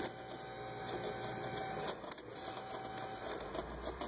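Spark plug socket and extension turned by hand inside the plug tube of a 3.6L V6, threading a new spark plug into the cylinder head: a few light metal clicks over a steady hiss.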